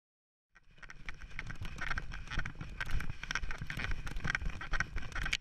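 Sound from a camera strapped to a running dog's harness, starting about half a second in: wind buffeting the microphone, knocks and rustles of the harness and paws, and the dog panting about twice a second.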